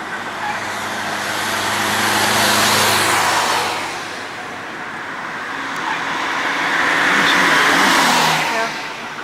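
Two cars passing by one after the other, each one's engine and tyre noise rising to a peak and fading away, the first about three seconds in and the second near the end.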